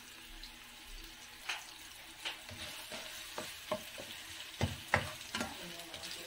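Julienned carrots sizzling softly in oil in a nonstick wok. From about a second and a half in, a spatula stirs them and knocks against the pan in irregular clicks, loudest a little before the end.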